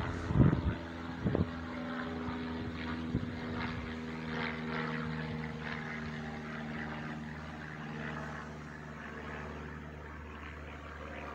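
Light propeller aircraft flying overhead: a steady engine drone with propeller buzz, slowly fading near the end. A few sharp thumps in the first second or so.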